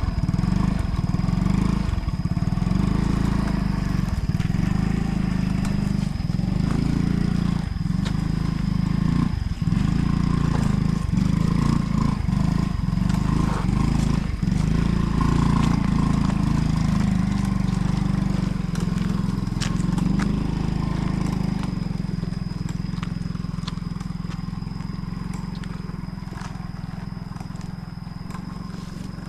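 A small engine running steadily, its level falling off gradually over the last several seconds.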